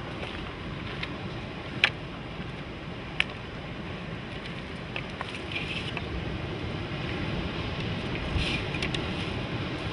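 Footsteps of people walking past on rocky, brushy ground: two sharp knocks about two and three seconds in, and short crunching rustles later on. These sit over a steady outdoor rush.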